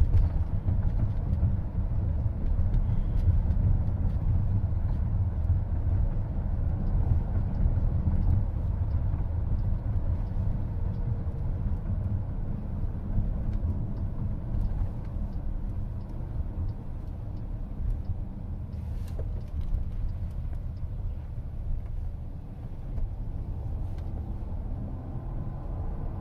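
Steady low road and tyre rumble inside a moving car's cabin, easing slightly over the second half.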